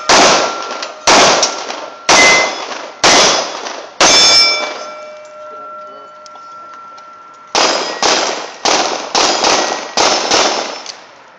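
Colt 1991A1 .45 ACP pistol firing at steel targets, the plates ringing with a clang after each hit. Five shots about a second apart, a pause of about three seconds, then about six quicker shots.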